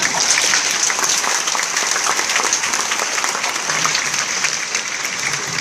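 Large congregation applauding: many hands clapping together in a dense, steady patter that eases slightly near the end.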